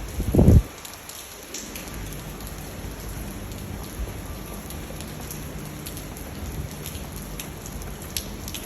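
Heavy rain falling: a steady hiss with scattered drop ticks. There is one brief, loud low rumble about half a second in.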